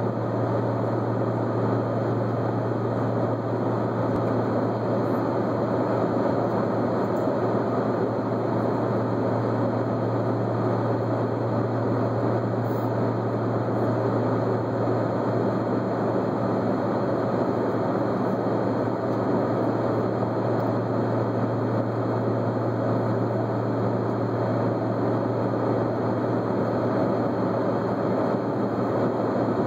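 Aircraft cabin noise in flight: a steady rush of engine and airflow noise with a constant low hum underneath.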